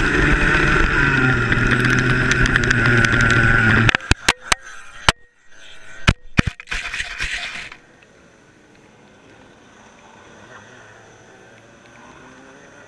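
Go-kart engine running at speed, then about four seconds in its sound cuts off abruptly as a GoPro camera breaks loose and tumbles, giving a flurry of sharp knocks and scrapes over the next few seconds. After that only a faint steady hiss remains as the camera lies still.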